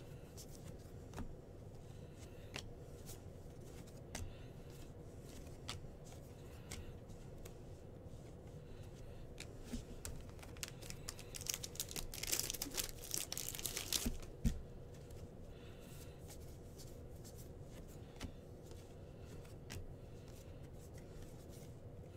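Baseball card packs being opened and gone through by hand: cards flicked and slid with scattered sharp ticks, and a burst of foil wrapper tearing and crinkling about twelve seconds in, followed by a single thump.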